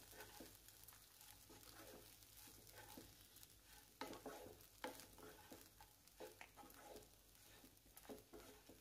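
Faint scraping and tapping of a wooden spatula stirring crumbled idli in a kadai, with a light sizzle underneath; a few slightly louder scrapes come about four, five and eight seconds in.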